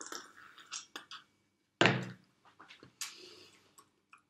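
A person sipping a milky drink full of jelly bits, with short slurping sounds, then a dull thump about two seconds in and a long breathy exhale.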